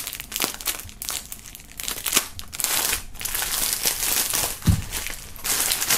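Plastic shrink-wrap film being cut open and pulled off a wrapped flag, crinkling and crackling, thicker in the second half, with a low thump a little before five seconds in.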